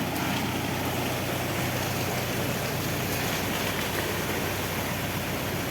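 Engine of construction machinery running steadily at a constant pitch, with a low hum under an even mechanical noise.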